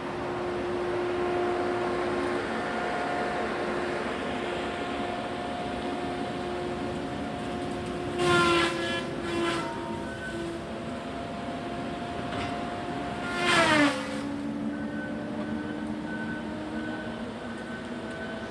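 Engine of logging machinery running steadily out of sight in the woods at a constant pitch. There are two brief louder, strained surges about eight and thirteen seconds in. The second slides down in pitch, and the engine then runs on at a lower pitch.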